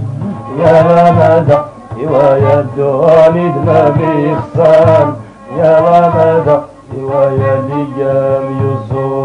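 Moroccan traditional ensemble music: male voices singing in phrases of about a second each, accompanied by a violin bowed upright on the knee and frame drums.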